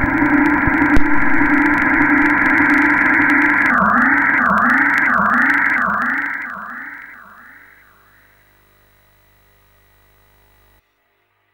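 Commodore chip music drone: a held chord of steady electronic tones. About four seconds in, the chord starts wobbling in pitch roughly every half-second, then fades out by about eight seconds.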